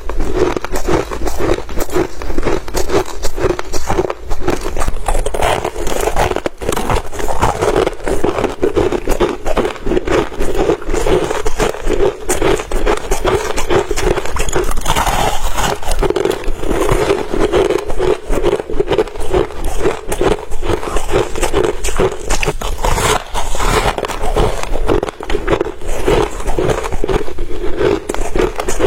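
Crushed ice being bitten and chewed close to the microphone: a continuous dense run of crisp crunches.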